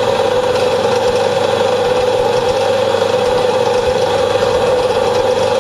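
Metal lathe machining stainless steel: a loud, steady mechanical whir with a strong droning tone.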